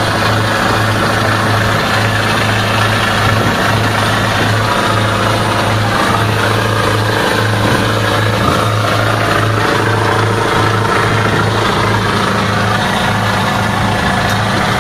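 Passenger boat's engine running steadily under way, a constant low hum under the rushing of wind and water.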